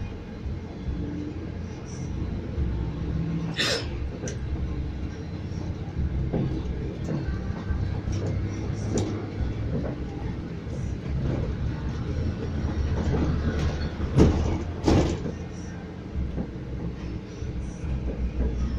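Low engine and road rumble heard inside a moving vehicle's cabin, with a few sharp knocks, the loudest about four seconds in and twice around fourteen to fifteen seconds in.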